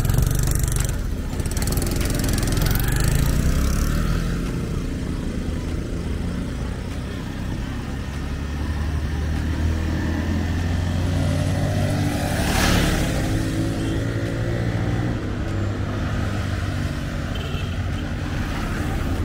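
Road traffic: vehicle engines running steadily, with one vehicle passing close about twelve seconds in.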